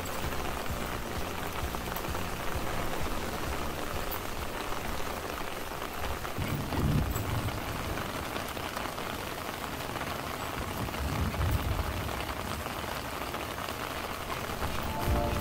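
Steady rain falling on garden plants and pots, an even hiss of drops. Two brief low rumbles come about a third and two thirds of the way in, and soft music starts near the end.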